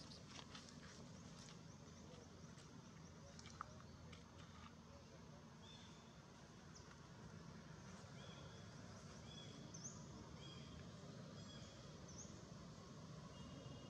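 Near silence of forest ambience, with faint rustling clicks in the first few seconds, then short high bird chirps repeating about once a second and a few quick whistled notes in the second half.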